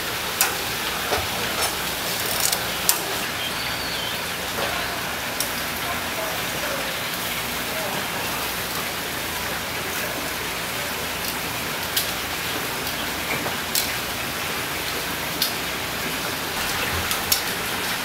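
Eel fillets sizzling on a grill over glowing coals, a steady hiss, with sharp metallic clicks now and then as tongs knock against the grate.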